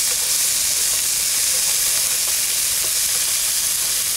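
Diced chicken breast and green bell pepper sizzling in a nonstick frying pan over medium-high heat: a steady frying hiss with scattered faint pops.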